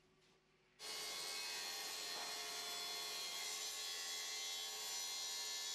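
Makita plunge saw running along its guide rail, cutting a wooden parquet plank to a marked line. A steady motor whine with sawing noise starts about a second in.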